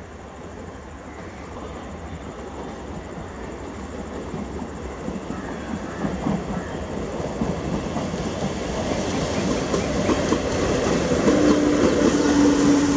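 A diesel-hauled train running on the rails with wheel clatter, growing steadily louder as it comes closer. Near the end a steady low tone comes in and holds.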